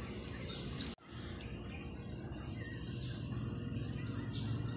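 Steady outdoor background noise with a few faint high chirps. The sound cuts out for an instant about a second in.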